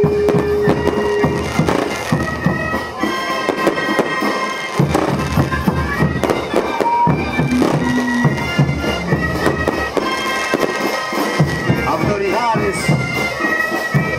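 A troupe of wooden tarka duct flutes playing a carnival tarkeada tune together, with sustained high notes and frequent sharp beats underneath.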